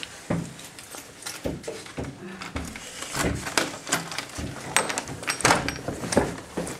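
Irregular knocks, clicks and rattles of a door being handled and opened, mixed with handling noise.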